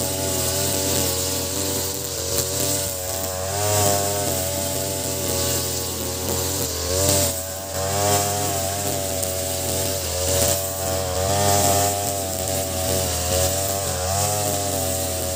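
Ogawa BG330 33cc two-stroke brush cutter running near full throttle, its 2.4 mm square nylon line cutting grass. The engine pitch wavers up and down as the line bites into the grass and frees up, dipping briefly about seven seconds in.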